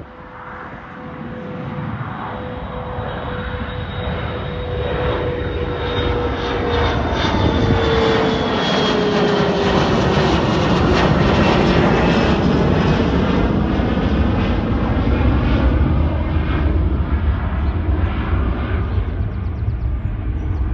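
Bombardier CRJ regional jet's two rear-mounted turbofans at climb-out power as it passes overhead. The jet noise swells, a whine glides down in pitch as the aircraft goes over about eight to ten seconds in, and a strong low rumble follows, easing off near the end.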